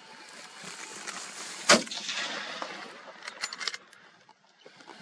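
A single gunshot about two seconds in, echoing briefly afterwards, followed by a few faint light clicks.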